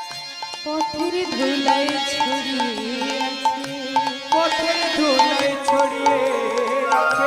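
Devotional Bengali kirtan music: a melody of held, gliding notes over steady hand-drum strokes.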